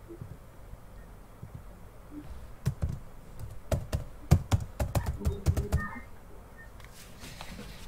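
Typing on a computer keyboard: a quick run of key presses that starts a few seconds in and lasts about three seconds.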